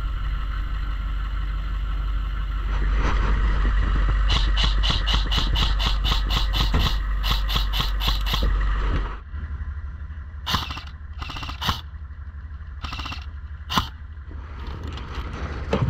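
An engine running with a low rumble, joined by a fast, even clatter of about four knocks a second; about nine seconds in the engine noise drops away suddenly. A handful of sharp, separate clicks follow.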